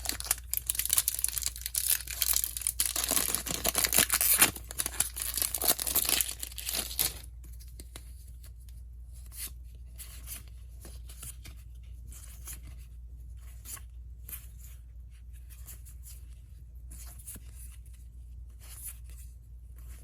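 Booster pack's foil wrapper being torn open and crinkled for about seven seconds, then quieter light rustles and ticks of the cards being handled.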